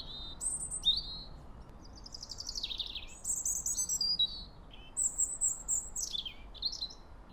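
Songbirds singing: a string of high chirps and short trilled phrases, some sliding downward in pitch, one after another over a faint background hiss.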